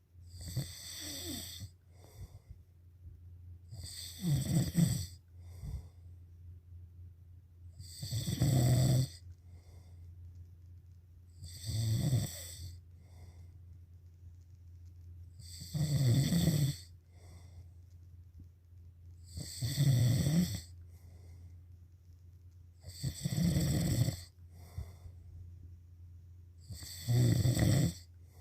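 A sleeper snoring loudly and regularly, about one long snore every three and a half to four seconds, with a softer breath between snores. A steady low hum runs underneath.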